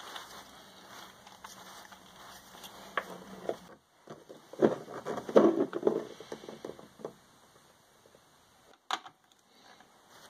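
Hands fitting a pressure gauge and a brass quick-disconnect air fitting into a PVC end cap: a spell of plastic and metal clattering and rubbing in the middle, then a sharp click near the end as a wrench tightens the fitting. A faint steady hum runs under the first few seconds.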